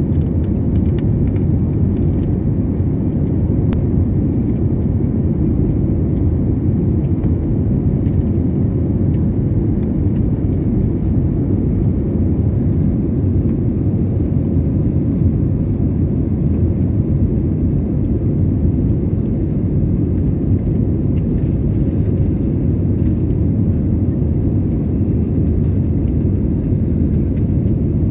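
Airliner cabin noise during the climb after takeoff: a steady, loud, low rumble of the jet engines and rushing air, heard from inside the cabin.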